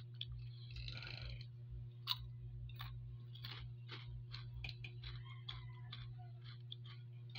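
Mang Juan vegetable chicharron, a crunchy puffed snack, crackling in faint, irregular crisp clicks as pieces are picked from a bowl and chewed, over a steady low hum.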